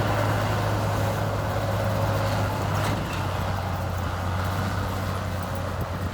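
Heavy diesel engine of an earthmoving machine running steadily; its pitch drops slightly about halfway through and the sound eases off a little toward the end.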